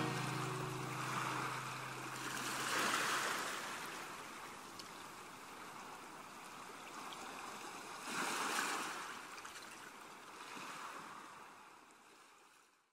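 Sea waves washing in and drawing back in slow swells, about three of them, fading away near the end.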